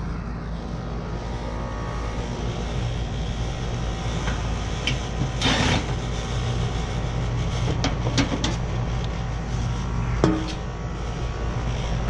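Steady low machine hum, with a few short knocks and clatters as hands handle the air-conditioning condenser's sheet-metal panel.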